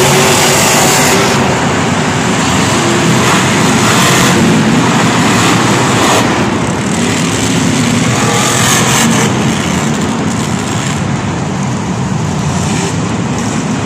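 Several monster trucks' supercharged V8 engines running and revving together, a loud continuous din echoing around a domed stadium, the engine pitch rising and falling several times.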